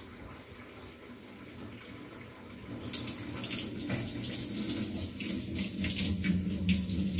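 Water pouring from the fill inlet of an LG top-load washing machine and splashing into its empty stainless-steel drum. The flow gets louder about three seconds in. The strong fill shows flow restored after the mud-clogged cold-water inlet screen was cleaned.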